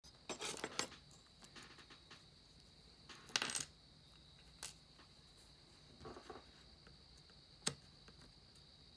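Light metallic clicks and clinks of small hard parts and tools being handled while a WiFi card is installed, coming in several short clusters with a single sharp click near the end. A faint, steady high-pitched whine runs underneath.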